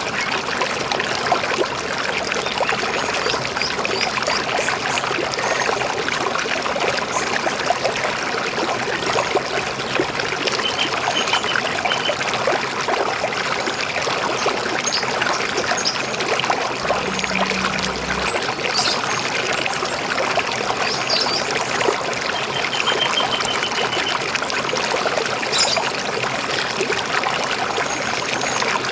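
River water flowing and gurgling in a steady rush, with a few faint bird chirps now and then.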